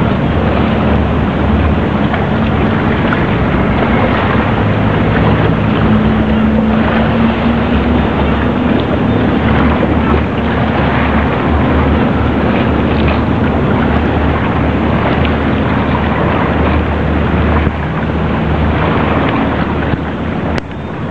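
A boat's engine running steadily with a low hum, under a constant rush of wind and water, heard from aboard the moving boat.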